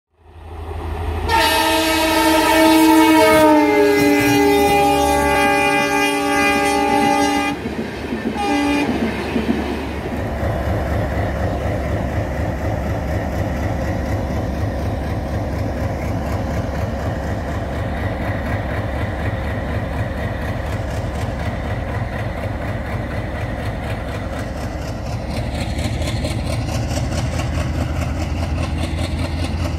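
WDM-3D diesel locomotive's horn sounds one long multi-tone blast of about six seconds, then a short toot. Its ALCO 16-cylinder engine then settles into a steady low chugging as it accelerates the train.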